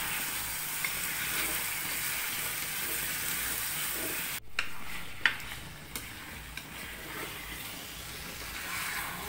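Marinated chicken pieces sizzling in hot oil and masala in a kadai while being stirred, a steady hiss. A few sharp clicks come about halfway through, and the sizzle eases a little after them.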